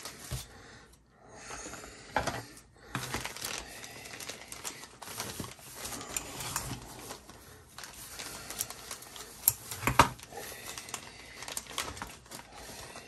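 Clear plastic bags holding resin model-kit parts crinkling and rustling as they are handled and opened, with scattered light clicks and knocks and a couple of sharper knocks about ten seconds in.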